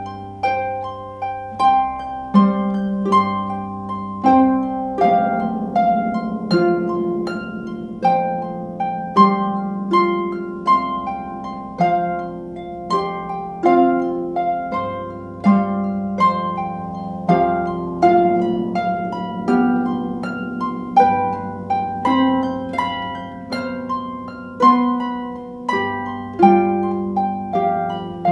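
Two concert harps playing together: a steady pulse of plucked notes, about one strong attack a second, each ringing out over lower sustained notes.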